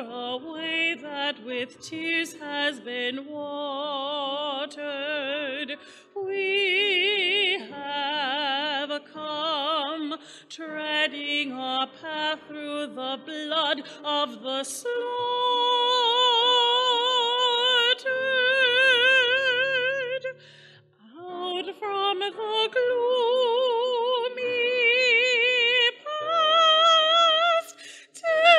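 Solo female voice singing with strong vibrato. Quick ornamented runs of notes give way about halfway through to long held notes, with a short break about two-thirds of the way in.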